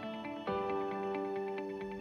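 Soft instrumental background music: gentle held notes, with a new chord coming in about half a second in.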